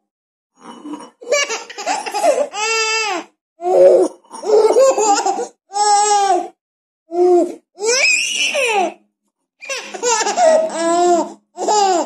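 A baby laughing in repeated high-pitched bursts of squeals and giggles, with short pauses between them.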